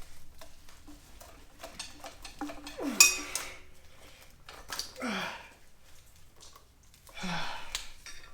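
Metal tools and engine parts clinking and clanking as the engine is worked on, with one sharp metallic clank about three seconds in that rings briefly. Short strained grunts of effort come three times.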